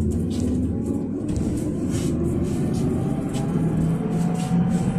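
Inside a PAZ 32053 bus under way: its ZMZ-5234 V8 engine running with a steady low rumble over road noise. About halfway through, a whine starts to rise slowly in pitch as the bus picks up speed.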